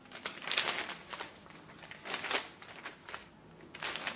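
Crisp kosa silk saree fabric rustling in several short bursts as it is lifted, moved and unfolded.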